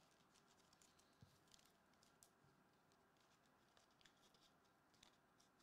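Near silence, with a few faint, scattered ticks from trading cards being handled and flipped through.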